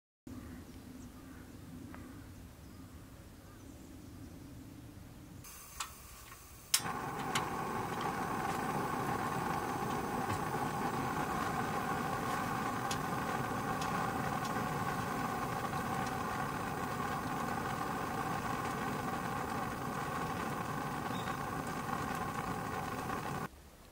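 Portable gas burner lit with a sharp click about seven seconds in, then burning with a steady hiss that cuts off suddenly near the end.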